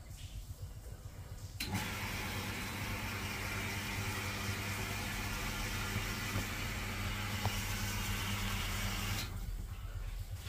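A motor running at a steady pitch. It switches on suddenly about two seconds in and cuts off suddenly about a second before the end, over a low background hum.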